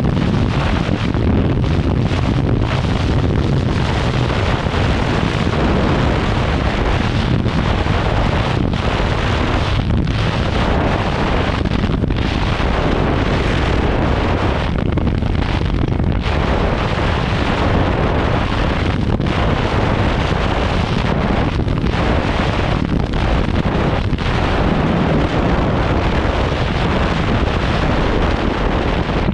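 Heavy wind noise buffeting the microphone of a motorcycle riding at speed, loud and steady with brief lulls every second or two.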